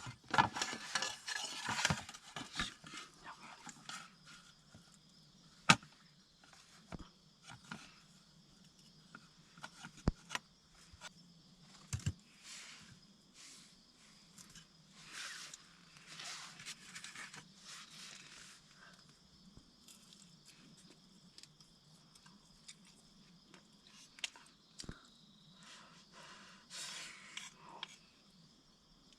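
Sparse light clicks, taps and rustles of small objects being handled, the clearest taps about 6, 10 and 12 seconds in, over a faint steady high-pitched background.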